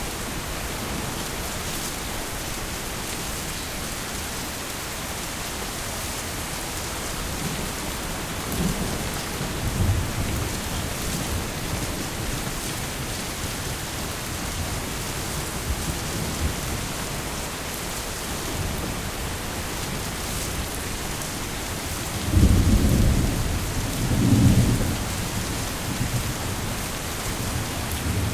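Heavy rain falling steadily, with a low thunder rumble about ten seconds in and a louder, rolling thunder rumble in two swells a little past twenty seconds.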